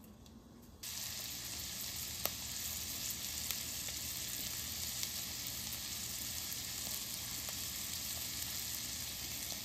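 Cornstarch-coated pork cubes sizzling steadily in hot oil in a stainless steel pan, the sizzle starting suddenly about a second in, with a few light clicks.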